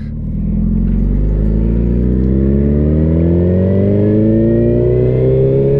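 Suzuki Hayabusa's inline-four engine pulling steadily, its pitch rising slowly as the motorcycle accelerates.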